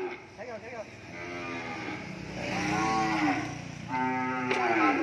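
Cattle being loaded onto a livestock truck mooing repeatedly: about four calls, a short wavering one at the start and longer, fuller ones about a second in, near the middle and near the end.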